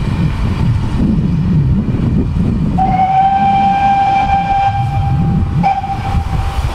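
GWR 6400-class pannier tank locomotive's steam whistle giving one long, steady blast about three seconds long, with a short break near its end, over a continuous low rumble.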